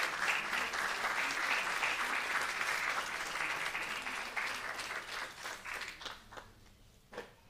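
Audience applauding, the clapping thinning and dying away about six seconds in, with a single knock near the end.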